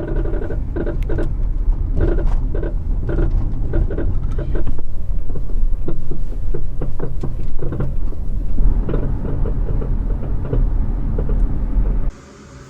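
Mercedes driven over uneven road: a heavy low rumble of road and wind noise with repeated short clunks and knocks from the suspension. It is the clunking typical of worn sway bar links. The sound cuts off abruptly near the end.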